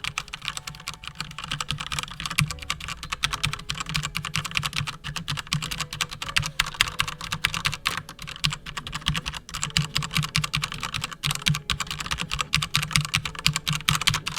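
Fast, continuous typing on a Gigabyte Force K83 mechanical keyboard with Cherry MX Red linear switches: a dense clatter of many keystrokes a second.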